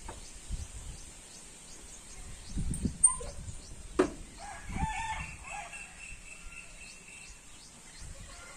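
A rooster crowing once, a long held call about halfway through, after two sharp clicks a second apart.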